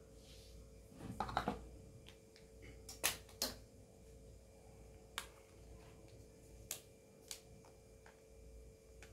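Faint sharp clicks and taps from small hard objects being handled, a handful spread a second or two apart, over a steady faint hum.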